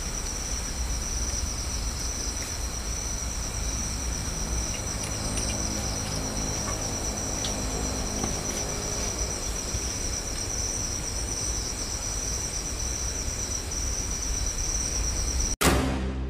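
Steady night chorus of insects, one continuous high-pitched trill. Near the end it cuts off abruptly and music with heavy drum strikes begins.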